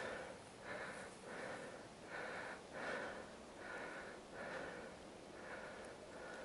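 A person breathing hard, in and out in an even rhythm of about one puff every three quarters of a second.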